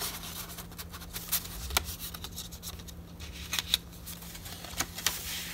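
Paper rustling with scattered light ticks and snaps as a handmade paper envelope is slid into a paper pocket on a junk journal page and the page is pressed flat.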